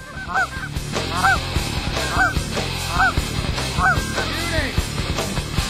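Geese honking, a series of rising-and-falling calls roughly once a second, with a few close together near the start. Music plays underneath.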